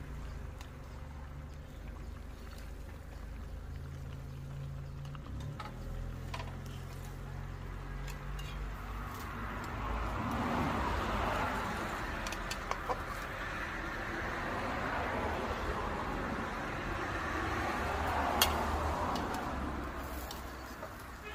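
A few light metal clicks of a slotted spatula and spoon against a stainless pot as pieces of fish in a simmering coconut rundown are turned. There is a busy background sound in the second half that swells twice.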